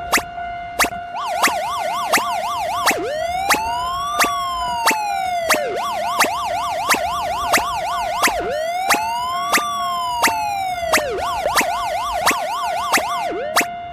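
Siren sound effect alternating between a fast yelp and a slow rising-and-falling wail, twice each, over a level-crossing alarm ringing steadily about one and a half strikes a second. The siren starts about a second in and stops near the end, while the crossing bell keeps going.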